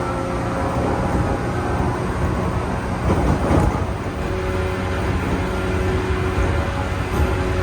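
A 415 series 1500 electric train standing at a station before departure: a steady hum and whine from its onboard equipment over a low rumble, with a brief swell of noise about three seconds in.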